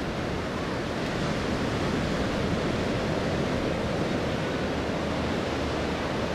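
Distant jet roar of four F-16 fighters in formation, a steady rushing noise that swells slightly over the first couple of seconds and then holds.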